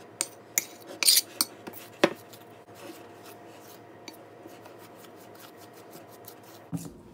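A metal fork scraping and clinking against a white glass mixing bowl as it cuts an egg into a dry flour-and-sugar mixture. There are several sharp clinks in the first two seconds, then lighter, quicker scraping and ticking.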